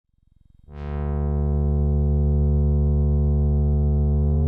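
Moog Sirin analog monophonic synthesizer playing a low sustained bass note. It fades in with a bright, buzzy attack whose top end quickly mellows, then holds steady. Near the end the pitch starts to glide upward toward the next note.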